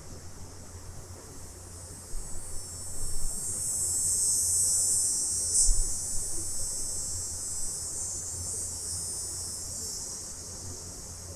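Cicadas buzzing in a dense, high drone that swells about three seconds in, peaks mid-way and then slowly fades, with a few faint low bumps.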